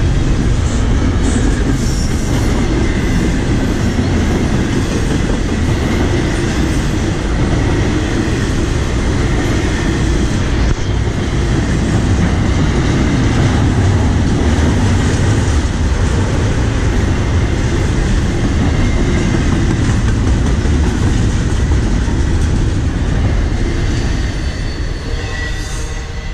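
Double-stack container freight train rolling past, a steady loud rumble with the clatter of wagon wheels over the rails. The sound begins to fade a couple of seconds before the end as the last cars pull away.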